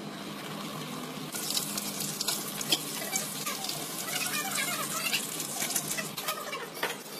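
Breaded chicken breast frying in hot oil in a pan: a crackling sizzle with many small pops, which starts about a second in.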